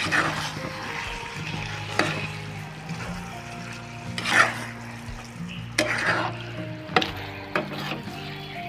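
Slotted metal spoon stirring a thick chicken curry in a nonstick kadai, with scraping swishes and a few sharp clicks of the spoon against the pan, over background music.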